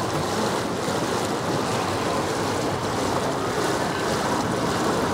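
Steady rush of water along the hull of a moving tour boat, mixed with wind on the microphone.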